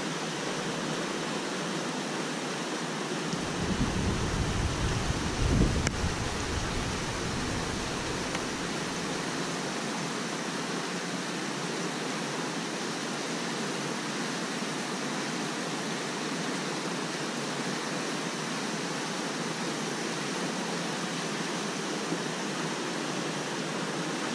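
Flash floodwater rushing fast and high down a normally dry creek bed, a steady full rushing noise. A brief low rumble rises over it between about three and six seconds in.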